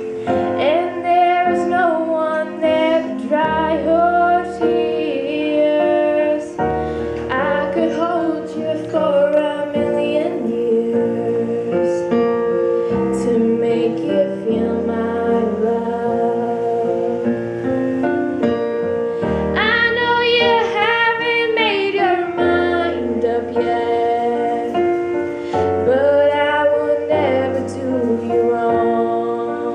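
A woman singing a slow song live into a microphone, with vibrato on her held notes, over sustained accompanying chords that change every few seconds.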